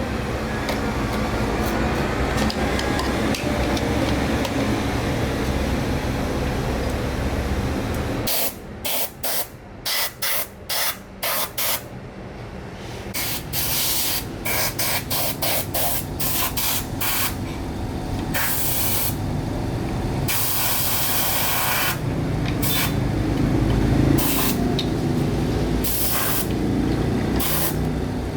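Pressurised spray hissing, steady for about eight seconds, then let off in many short bursts, some a fraction of a second and some a second or two long, as the trigger is pulsed.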